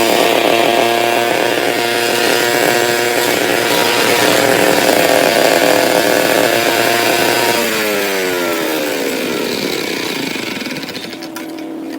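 Handheld brush cutter (grass trimmer) with a small engine running at full speed. About two-thirds of the way through its revs fall away as the throttle is let off, settling to a low idle near the end.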